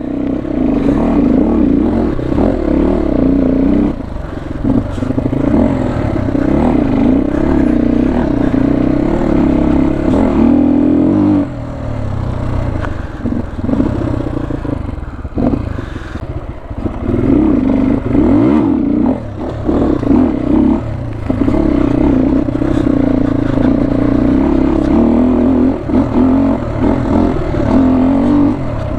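HJ250 motorcycle ridden off-road: the engine runs under load, its revs dropping and picking up again several times, with clattering and scraping over rough ground.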